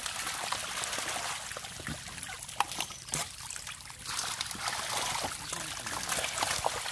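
Wet splashing and squelching of mud and water as hands scoop stinging catfish out of shallow pond mud into baskets and bowls, full of short slaps and splats, with one sharp slap about two and a half seconds in.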